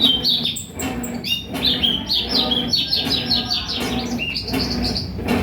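A small bird singing: a fast run of short high chirps and trills, over a low steady hum.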